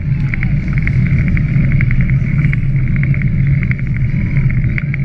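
A bicycle bell rung over and over in quick bursts of strikes, over a steady heavy low rumble of wind and motion as the bank party moves along the towpath.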